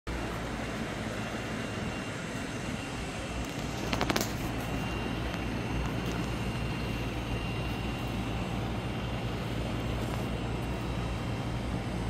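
Steady low rumbling outdoor background noise with a constant low hum, broken about four seconds in by a quick run of sharp clicks.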